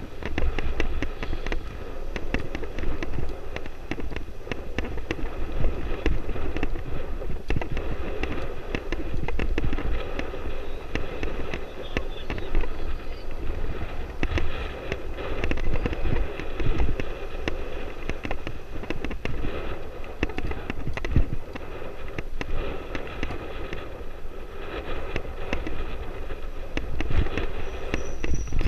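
Dirt bike ridden over a rough, sandy road, heard from the rider's camera: wind buffeting the microphone over the running engine, with a constant rapid rattle of clicks and knocks.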